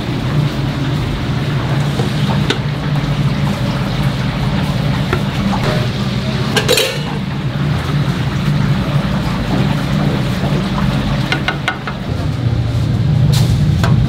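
A steady low mechanical hum, with scattered sharp clinks of metal or dishes, one clear one about halfway and a few more near the end.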